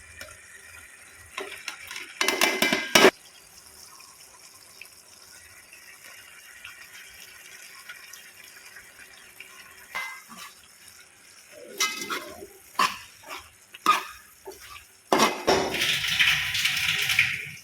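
Liquid splashing and pouring in short spells, with clicks and clinks of dishes; the longest spell of pouring comes near the end.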